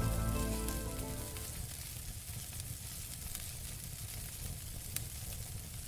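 Background music fading out over about the first second and a half, leaving a steady crackling hiss with an occasional faint click.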